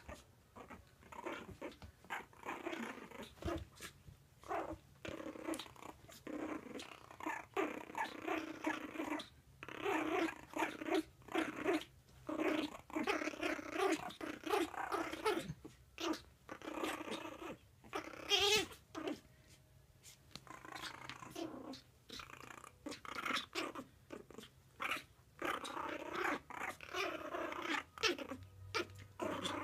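Puppies growling in short, repeated bursts while tugging a sock between them in play.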